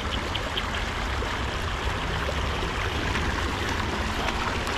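Steady rush of water pouring from a drainage outflow pipe into shallow water.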